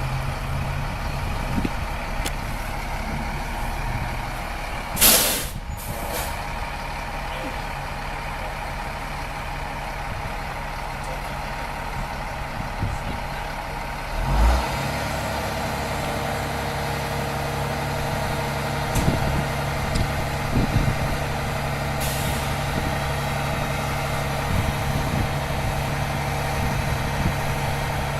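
Fire truck's diesel engine idling steadily, with a loud hiss of air brakes releasing about five seconds in and a shorter one a second later. A low thump about halfway through, after which the engine note changes.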